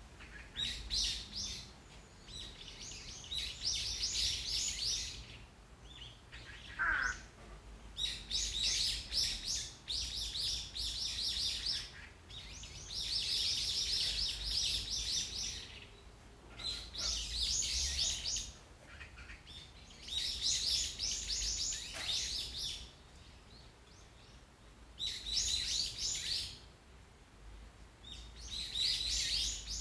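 Birds chirping in repeated bursts of rapid high notes, each burst a second or two long with short pauses between, and one lower falling whistle about seven seconds in. A low steady rumble runs underneath.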